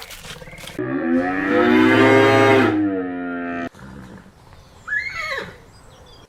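Animal calls: one long, low, drawn-out call lasting about three seconds, rising and then falling in pitch, followed about five seconds in by a shorter, higher call that sweeps downward.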